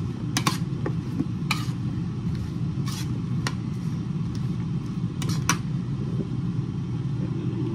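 Air fryer running with a steady low hum, with several light clicks and taps over it.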